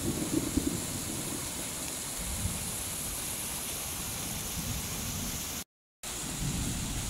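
Muddy rainwater runoff rushing and splashing down a rocky hillside channel in small cascades, a steady rushing of water that breaks off for a moment near the end.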